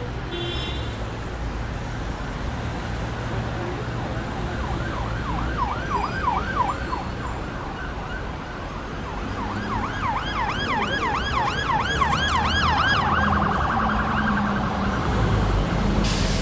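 An emergency-vehicle siren in a fast rising-and-falling yelp, heard in two spells, the second longer and louder, over a steady low traffic rumble.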